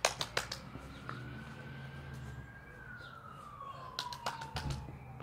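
Quick runs of hand claps made while a thrown ball is in the air: a few sharp claps right at the start, then another fast run of about five about four seconds in. Behind them, a faint siren wails slowly up and then down.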